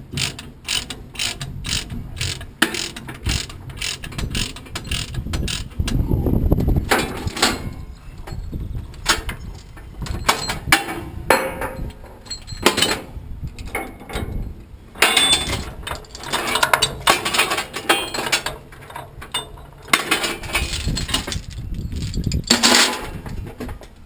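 Steel transport chains and chain binders being unhooked and dropped into a trailer's chain box, clanking and rattling throughout, with a quick run of regular clicks near the start.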